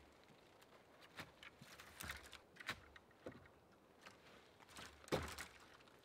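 Scattered light knocks and rustles of wooden poles being handled and set against a lean-to frame, with footsteps in dry leaf litter. The loudest knock comes about five seconds in.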